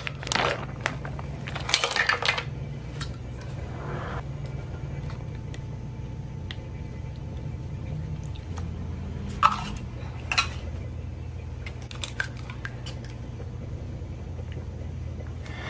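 Ingredients dropped into a stainless steel food-chopper bowl: scattered knocks and clinks against the metal, the two loudest about nine and ten seconds in.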